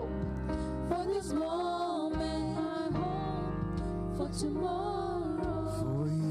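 Live church worship band playing a song, with a singer's voice carrying the melody over sustained keyboard chords and a bass line.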